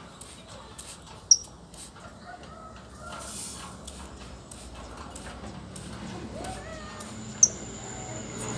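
Lovebird giving two sharp, very short high-pitched chirps, one about a second in and one near the end. A brief hiss comes in between.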